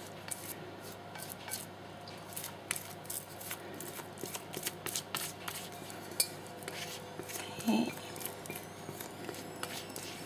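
Thick cake batter being scraped out of a large mixing bowl into a cake pan: a run of light scrapes and clicks of the utensil against the bowl.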